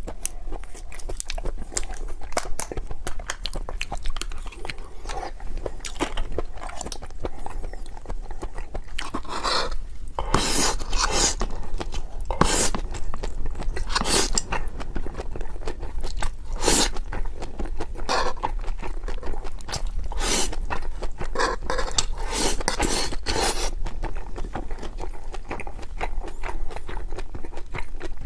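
A person biting and chewing crunchy food, a run of crisp crunches that comes thickest and loudest in the middle stretch.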